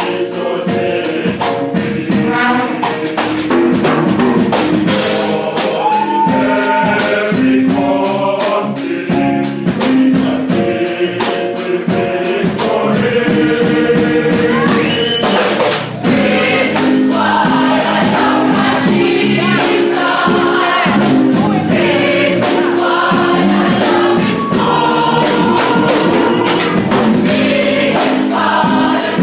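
A choir singing a worship song over instrumental accompaniment with a steady beat.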